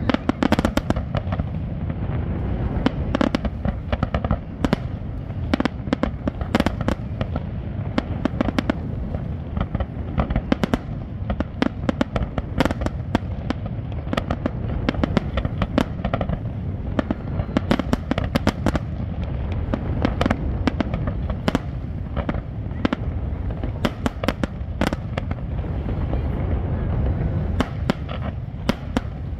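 Fireworks display: many sharp bangs and crackles from bursting shells in quick succession, over a steady low rumble.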